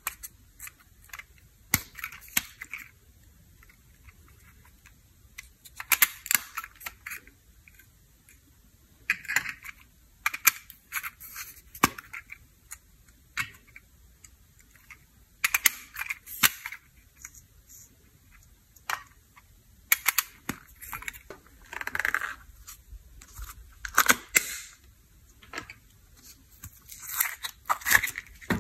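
Plastic macaron-shaped makeup compacts clicking and clacking as they are twisted apart and handled, with short scrapes and crumbling of powder makeup in a glass dish. The sounds come irregularly, a few at a time with quiet gaps between.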